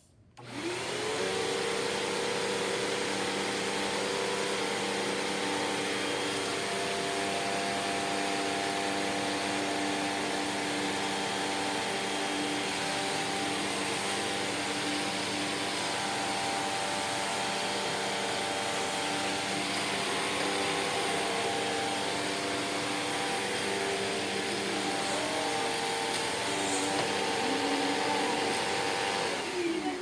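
Hoover upright vacuum cleaner switched on, its motor spinning up with a rising whine, then running steadily with a loud airflow hiss as it is pushed over cracker crumbs on a hard floor, and switched off near the end, the motor winding down.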